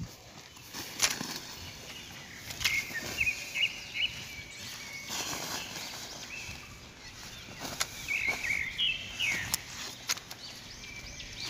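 Brief crackles and rustles of a woven plastic sack being handled, with footsteps on dry grass; the sharpest crackle comes about a second in. Birds chirp in the background twice, a few seconds in and again near the end.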